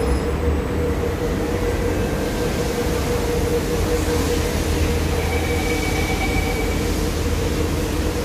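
SMRT C151A metro train standing at a station platform with its doors open, its onboard equipment giving a steady hum. A faint high tone sounds for about a second and a half, about five seconds in.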